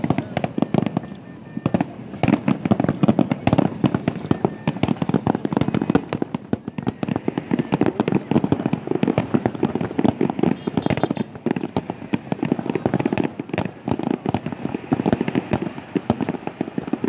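Fireworks display going off: a continuous barrage of sharp bangs and pops, many a second, with a slight lull about a second in.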